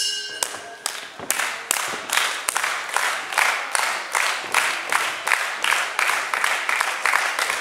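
Wrestling crowd clapping in unison, about three claps a second, with crowd voices underneath. Right at the start a ring bell rings briefly and fades.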